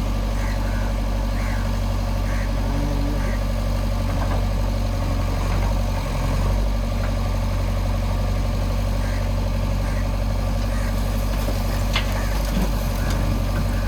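Heavy diesel engine of earthmoving machinery running steadily at idle, a constant low hum with no revving.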